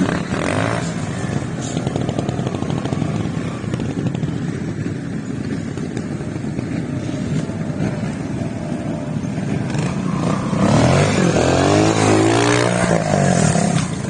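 Trials motorcycle engines running throughout. From about ten seconds in, one bike is revved hard for about three seconds, its pitch rising and falling quickly and louder than before.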